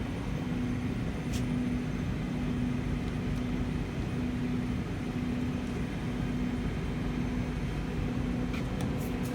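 Tree VMC1050 vertical CNC machining center running while its tool changer is operated: a steady low hum with a whine that cuts in and out every second or so, and a few faint clicks.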